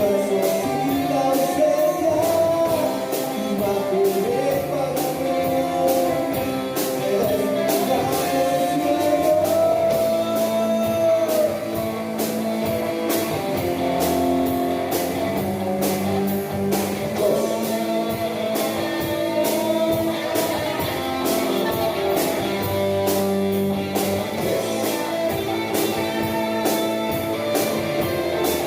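Live rock band playing: electric guitar and drums with a sung melody over them, the singing clearest in the first half.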